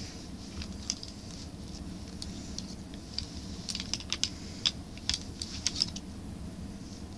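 Small, sharp plastic clicks and taps as Monster High dolls and a doll stand are handled and moved about, most of them bunched together between about three and a half and six seconds in.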